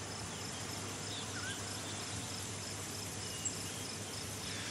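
Woodland ambience: insects chirping in a steady, evenly pulsing rhythm over a soft, even hiss.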